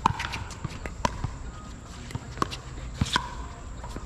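Pickleball paddles striking a hard plastic ball in a rally: sharp, ringing pops about once a second, with fainter pops between.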